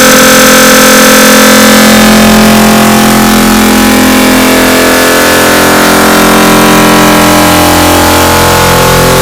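Sneeze sound effect digitally sped up and layered over and over until it has become a loud, clipped, steady drone of several held tones over a hiss.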